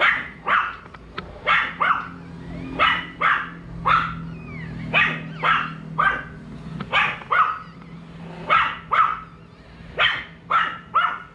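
A dog barking repeatedly, short sharp barks often in quick pairs or threes, about twenty in all.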